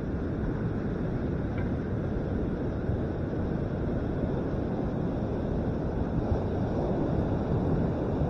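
Wind buffeting the camera microphone in a steady low rumble, mixed with the wash of ocean surf breaking and running up the sand.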